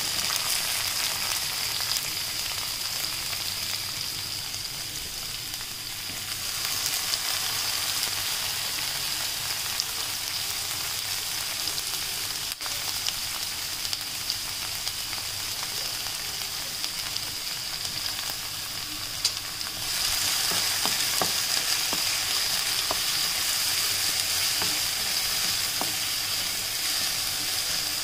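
Chopped green capsicum sizzling in hot oil in a pan, the sizzle starting suddenly as the peppers hit the oil and growing louder twice. In the last third a wooden spatula stirs them, adding light scraping taps over the sizzle.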